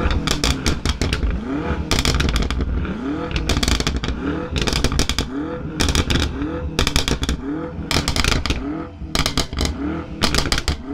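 Twin-turbo V8 performance exhaust revved in quick blips about every second, each rev rising and falling with a rapid burst of crackles and pops on the overrun.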